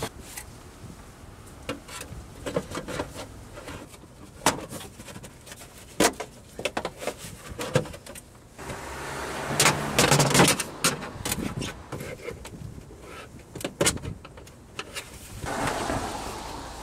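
Irregular clicks and knocks of hand tools and plastic trim parts being handled around a hybrid battery pack in a car's cargo area. There is a louder scraping rustle about ten seconds in and another shorter one near the end.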